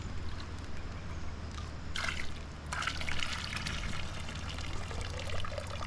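Water trickling and pouring as a gold pan is swirled and tipped in a creek, with a small splash about two seconds in.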